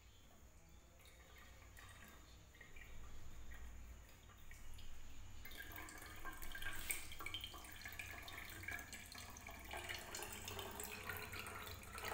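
Watermelon juice being wrung from a cloth bag of blended pulp, dripping and then trickling in a thin stream into a steel mug. The first few seconds hold only faint handling of the cloth; the splashing trickle starts about five seconds in and keeps going.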